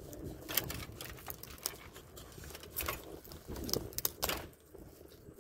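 Cooked crab leg shell being cracked and picked apart by hand close to the microphone: a series of irregular sharp cracks and crinkling snaps.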